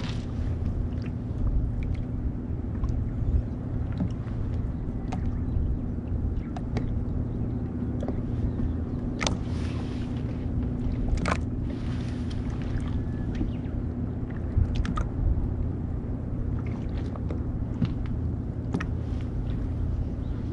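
A steady low hum with scattered light clicks and knocks from fishing tackle and bait being handled in a small boat.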